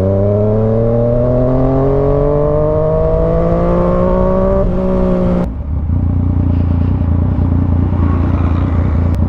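A big motorcycle's engine pulls under throttle, its note rising steadily for about five seconds. The throttle then shuts off abruptly and the engine drops to a low, steady rumble as the bike slows.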